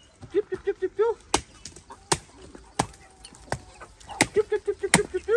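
Machete chopping into a hard-rinded calabaza squash on the ground: about six sharp blows, one every second or less. Chickens cluck in quick runs of short repeated calls near the start and again from about four seconds in.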